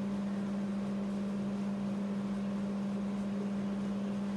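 Steady low-pitched hum over a faint hiss of room noise.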